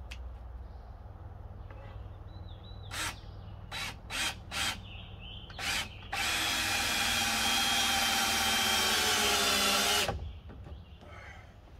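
Cordless drill driving screws into a wooden lumber frame: a few short trigger pulls, then one long run of about four seconds, the motor's pitch sagging slightly before it stops suddenly.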